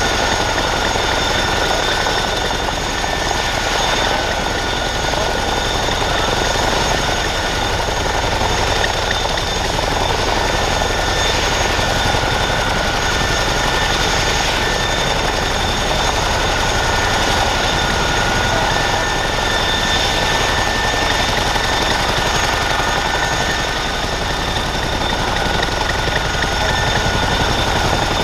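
Boeing CH-47F Chinook helicopter running on the ground with its twin rotors turning: a steady rushing rotor noise under a constant high turbine whine from its two T55 turboshaft engines.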